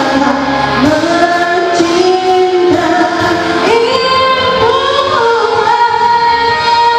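A woman singing into a handheld microphone over instrumental backing music. Her voice climbs in pitch about four seconds in, then holds one long note.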